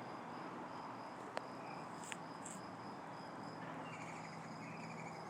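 Crickets chirping in the evening, a faint high tone pulsing in short, evenly repeated chirps, with a few brief trills and one sharp click a little over a second in.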